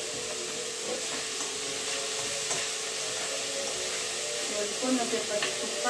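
Capsicum and onion sizzling in oil in a kadai on a gas burner while being stirred, a steady hiss with a steady hum underneath.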